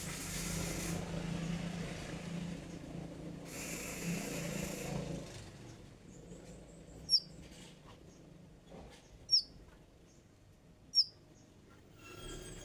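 A konin songbird giving three loud, sharp chirps about two seconds apart, after a few seconds of hiss and low hum, with a brief run of fainter chirping near the end.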